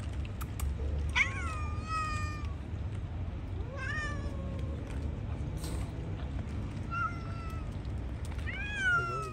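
Hungry stray cats meowing: four separate meows, each rising then falling in pitch, the first about a second in and the longest. A steady low rumble runs underneath.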